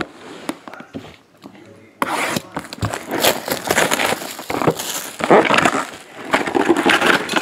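Plastic shrink wrap being torn and crinkled off a 2013 Prizm baseball card box. A dense crackling starts about two seconds in, after a single click and some quieter handling.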